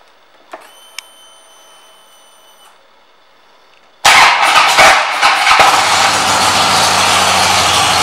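The 2011 Harley-Davidson Dyna Wide Glide's air-cooled Twin Cam 96 V-twin is started. After a click and a faint high whine for about two seconds as the ignition comes on, the engine cranks and catches suddenly at about four seconds, then settles into a steady idle.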